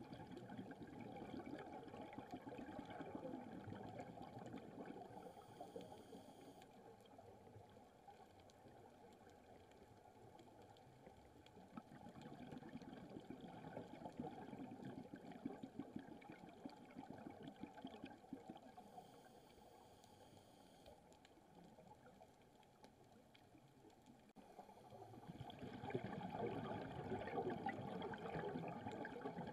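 Scuba diver breathing through a regulator underwater: three long bubbling rushes of exhaled air, each lasting several seconds. A short, faint hiss of inhalation falls between them.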